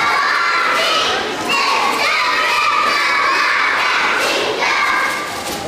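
A crowd of children shouting and cheering, many high voices overlapping at once.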